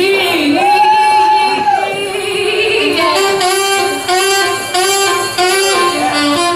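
Live band music with a woman singing over it; from about three seconds in, a saxophone plays a phrase of short repeated notes.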